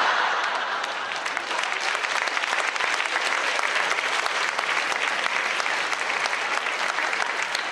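Audience applauding: dense clapping, a little louder in the first second and then steady. It is the audience's response to a punchline.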